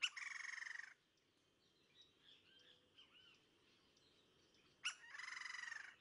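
Crimson-crested woodpecker calling twice, about five seconds apart. Each call is a sharp note followed by a rapidly pulsing churr lasting about a second. Faint chirps of other birds come between the calls.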